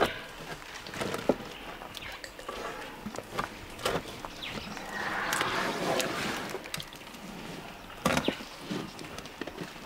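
Young elephant stripping bark off a tree trunk: irregular sharp cracks and snaps of wood with rustling, and a longer scraping rustle about halfway through.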